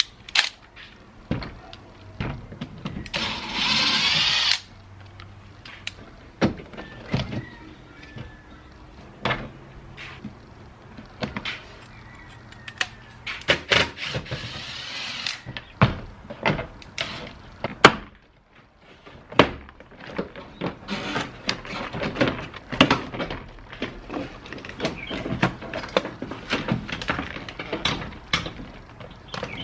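Toyota Tacoma door panel being taken off: many sharp clicks and knocks of plastic trim, clips and hand tools, with two longer noisy stretches of a second or two, one a few seconds in and one about halfway through.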